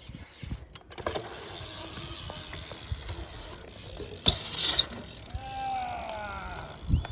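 BMX bike being ridden, its rear hub ticking as it rolls, with a short loud scrape about four seconds in and a heavy thump from a landing just before the end.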